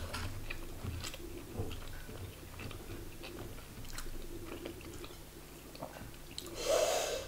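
Close-up chewing and mouth sounds of a person eating a rice meal by hand, with small scattered clicks and smacks. Near the end there is a short, louder breathy sound.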